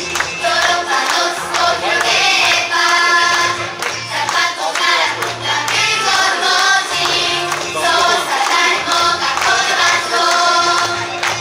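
Japanese idol-group pop song playing, with a group of girls' voices singing together over a steady bass line.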